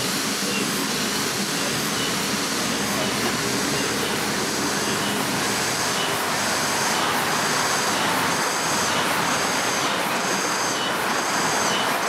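Wind rushing through park trees, a steady rush that swells about halfway through. Behind it is a rhythmic high-pitched insect chirping, a little over one pulse a second, clearest in the second half.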